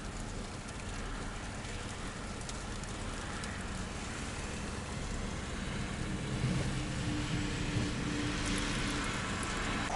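Steady road and weather noise from a car moving slowly in a sleet and snow storm, with sleet ticking against the car over the low rumble of engine and tyres. A faint low hum comes in about halfway through and fades near the end.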